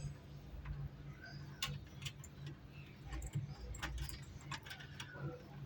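Irregular light clicks and taps, about half a dozen, over a low steady hum.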